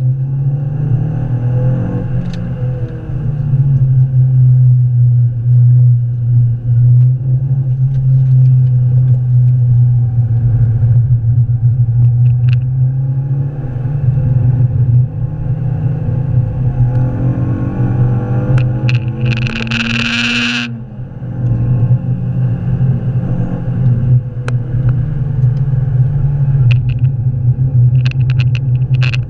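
Renault Clio 182's 2.0-litre four-cylinder engine heard from inside the cabin on track, a steady loud drone that rises and falls with the revs, over road and wind noise. About two-thirds of the way in, a short hiss lasts about a second and a half while the engine note falls and briefly dips.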